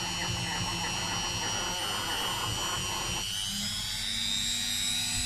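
Dremel rotary tool running steadily with a polishing buff, a high, even whine that steps up a little in pitch a bit past halfway.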